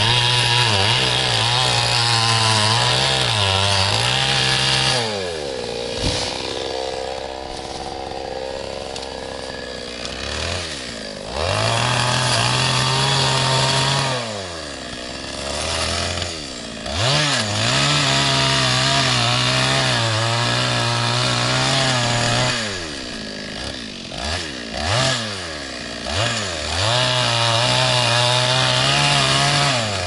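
Two-stroke chainsaw cutting a birch at full throttle for several seconds at a time, dropping to idle about five seconds in and again in the middle, with a few short throttle blips before the last long run.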